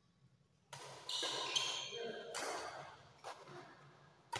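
Badminton rally in a reverberant hall: sharp racket strikes and footfalls roughly every half-second to second, starting a little under a second in, with short high shoe squeaks on the tiled floor.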